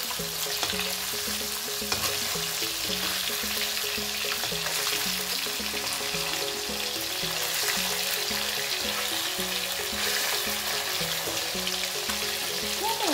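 Bhangon fish frying in hot oil in an iron kadai, a steady sizzle, as a metal spatula stirs and turns the fish in the pan. A repeating background tune plays underneath.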